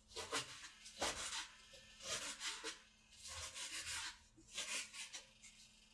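Kitchen knife chopping a red onion: a series of cutting strokes through the onion layers, about one a second.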